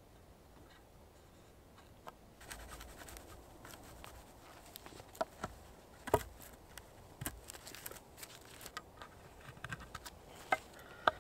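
Knife carving a wooden pole: faint scraping and shaving cuts with sharp clicks of the blade on the wood, starting about two seconds in, the loudest clicks a little after the middle and near the end.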